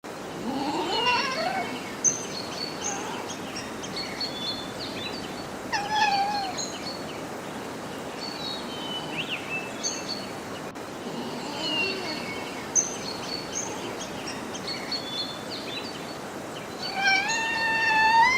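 Fox calling: a cry that rises and falls in pitch, repeated about every five to six seconds, with small birds chirping in the background.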